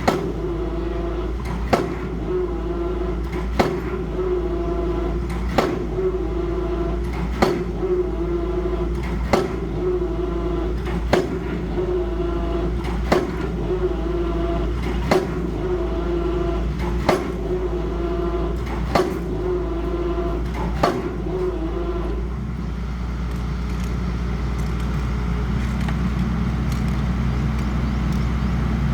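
Machinery running with a steady hum, and a sharp knock repeating about every two seconds. About three-quarters of the way in the knocking stops and a steadier engine sound slowly grows louder.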